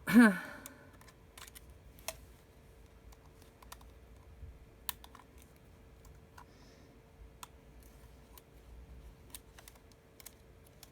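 Scattered small clicks and taps of metal tweezers and a spudger working on iPhone 6s parts and screws. A brief loud sound with a wavering pitch right at the start; a faint steady hum runs underneath.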